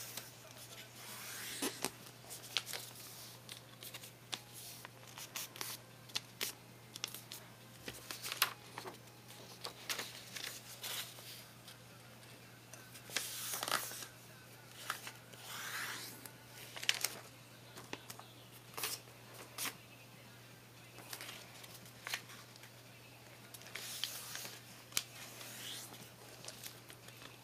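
Sheets of paper being handled and folded by hand: scattered rustling swishes and small taps and creases, over a steady low hum.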